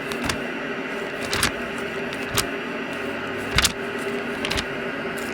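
A steady hum with several sharp clicks scattered through it at irregular intervals.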